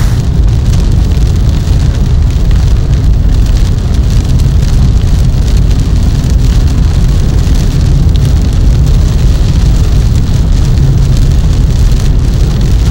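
Hurricane wind and driving rain buffeting a vehicle on the road: a loud, steady low rumble with a fainter hiss of rain above it.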